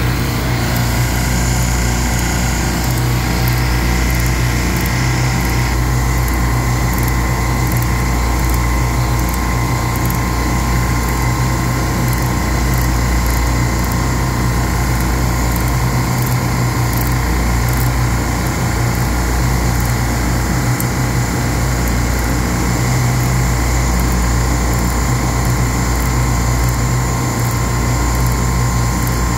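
Steady, loud drone of the running compressors on a Hill Phoenix refrigeration rack, with a deep even hum. Faint clicks of a ratcheting wrench being worked on a compressor fitting sound through it.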